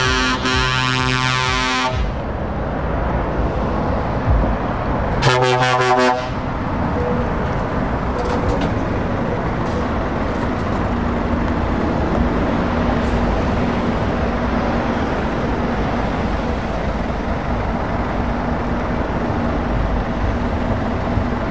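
A truck air horn sounds a deep, loud blast that stops about two seconds in, then a second short blast comes about five seconds in. After that a Scania tractor unit's diesel engine runs steadily as the lorry drives past and away.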